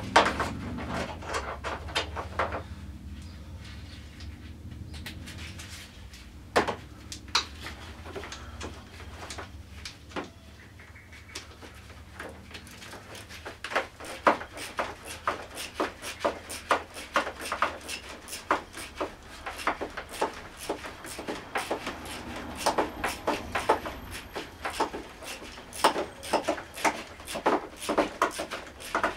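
Irregular metallic clicks and light knocks of hand work on a four-stroke scooter engine's exposed cylinder head, a few at first and then coming thick and fast through the second half.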